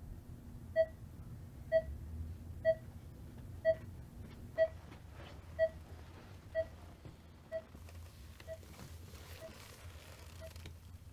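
Hospital bedside heart monitor beeping steadily about once a second, each beep short and mid-pitched, growing fainter over the second half, over a low room hum.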